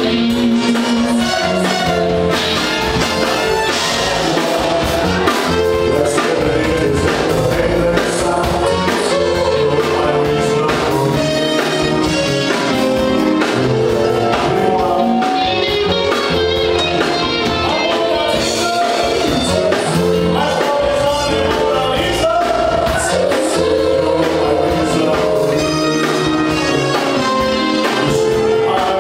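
Live band music: electric guitars, keyboards, drums and a horn section of saxophone and trumpets playing a continuous song, with a male vocalist singing over it.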